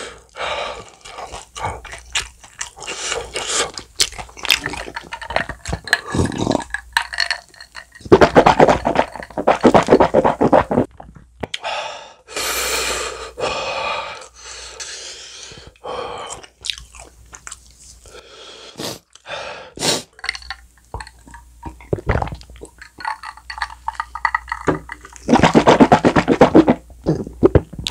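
Close-miked chewing and crunching of sauce-glazed fried chicken, in bouts of wet, sticky bites, loudest about eight to eleven seconds in and again near the end.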